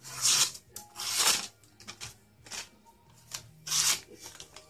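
A knife blade drawn in four short raspy scraping strokes, spaced unevenly about a second apart.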